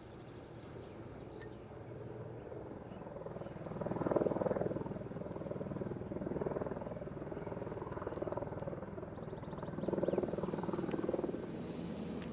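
Historic He 2/2 electric rack locomotive and its coaches on the 800 mm Schynige Platte rack railway, running out of a tunnel with a steady mechanical rumble and clatter from the cog drive. It swells louder about four seconds in and again near ten seconds.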